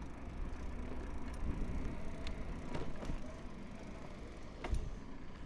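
Trek 3700 mountain bike rolling along a paved cycle track: steady tyre and riding noise over a low rumble, with a few sharp clicks and knocks from the bike, the loudest about three-quarters of the way through.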